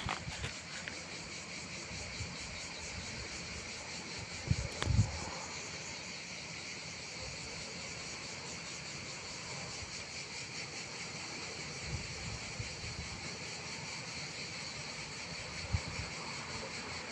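Steady, high chirring of insects, with a few short low thumps, the loudest about five seconds in.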